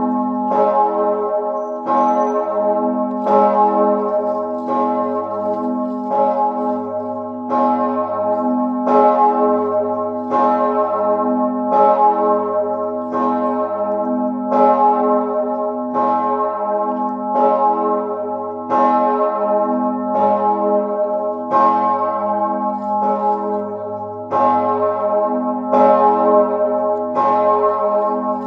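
The 4,820 kg A-flat (as°) great bell of the abbey church of St. Mauritius in Niederalteich, cast by Perner in 2003, is swinging and ringing alone. It strikes evenly about once every second and a half over its own low hum. This is the Sterbestundenläuten, the death-hour ringing rung on the single great bell.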